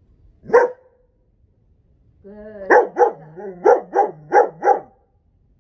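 Young dog barking on a leash: one sharp bark, then after a pause of more than a second a brief whine runs into a quick burst of about six barks.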